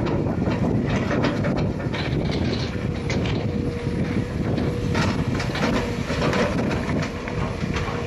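Excavator engine running steadily while its grapple tears through and sorts a pile of waste, with repeated clanks, knocks and crunching of debris. A steady whine joins about three seconds in.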